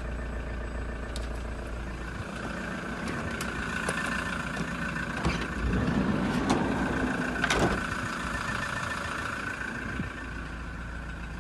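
Toyota Hiace's 3-litre turbo diesel engine idling steadily, with a few sharp knocks of handling in the middle.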